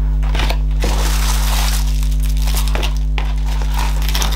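A clear plastic bag and a metallic bubble mailer crinkling and rustling as they are handled, in irregular bursts, over a steady low hum.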